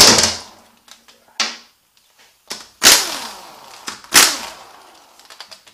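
Air impact wrench fired in four short bursts, each fading quickly, as it loosens the case bolts on a VW 09A automatic transmission; the second burst is weaker than the rest.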